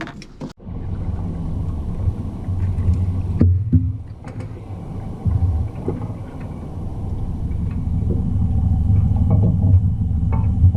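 Motorboat running across choppy water: a steady low engine and hull rumble, with a few sharp slaps and knocks from the hull meeting waves about three and a half seconds in.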